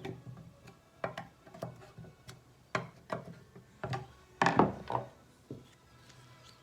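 Hand tools and parts being handled on a small engine: a series of separate sharp clicks and knocks, with the loudest cluster about four and a half seconds in.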